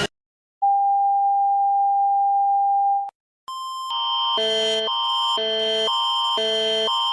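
Emergency alert tones: a steady single electronic tone lasting about two and a half seconds, a short break, then the Canadian Alerting Attention Signal begins. Its two chords alternate about twice a second over a constant high tone.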